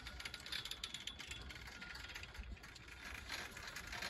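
Ride on a 1972 SLI double chairlift: the haul rope and sheaves running with a steady mechanical rattle of light clicks and a faint high whine.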